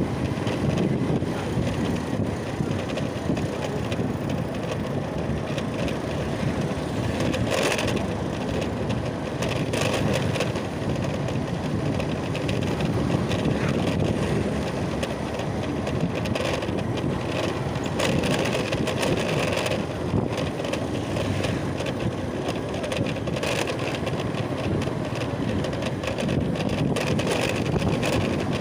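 Steady rumble and wind noise of a moving vehicle, as heard while riding, with a few brief louder knocks along the way.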